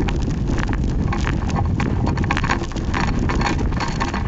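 Wind buffeting a camera's microphone, with rapid, irregular knocks and crackles from the camera shifting against the flagstick it leans on.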